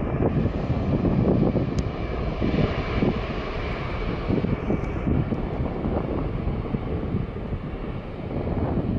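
Passenger jet airliner's engines rumbling steadily, with a faint high whine over the roar and wind buffeting the microphone.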